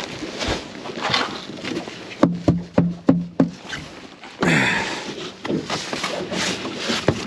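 Rustling and handling noise from a walleye being measured in a boat, with a quick run of sharp knocks about two to three and a half seconds in.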